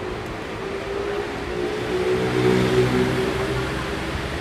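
A motor vehicle passing close by on the road: its engine grows louder to a peak about halfway through, then fades as it moves away, over street and surf background noise.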